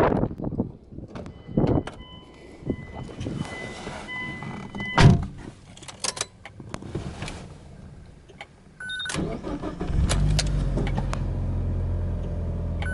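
A car door is handled and shut with a loud thump about five seconds in. About nine seconds in the Mitsubishi Lancer Evolution IV's turbocharged 4G63 inline-four is started, catching about a second later and settling into a steady idle.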